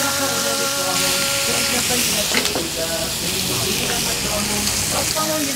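Lamb chops sizzling steadily in hot oil in a stainless steel frying pan, with a sharp knock about two and a half seconds in.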